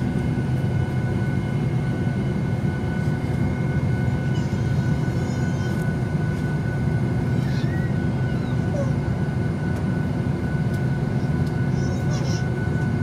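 Cabin noise inside a Boeing 737 MAX 8: a steady low rumble with a steady high whine over it.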